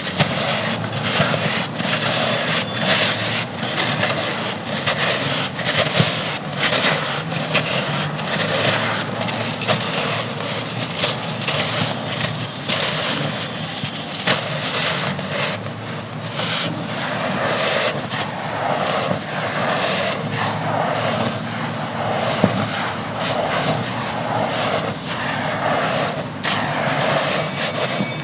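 Dry red dirt chunks being crumbled, a dense, continuous run of crunching and crackling.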